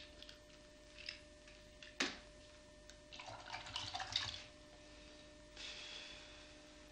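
Small clicks and clinks of objects handled in a ceramic bowl, then a short clattering rattle about three seconds in, and a soft liquid hiss near the end, over a faint steady hum.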